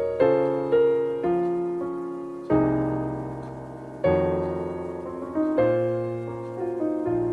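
Piano playing a slow instrumental passage between sung verses of a folk song: chords and melody notes struck one after another, each ringing and fading before the next.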